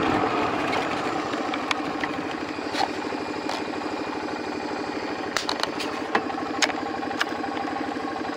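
Vehicle engine idling with a steady pulsing throb, with a few light sharp clicks and knocks over it, clustered around five to seven seconds in.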